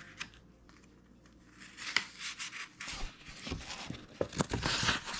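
Paper pages of an old sales brochure rustling and crinkling as they are handled and turned, starting about two seconds in and growing busier toward the end.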